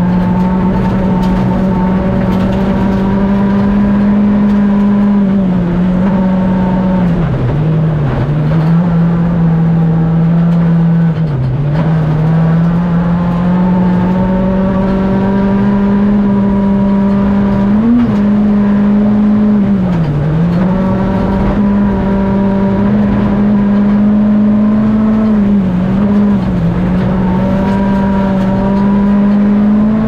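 Škoda Fabia R5 rally car engine running at fairly steady high revs, its pitch dipping briefly and recovering several times, as when the driver lifts off and changes gear.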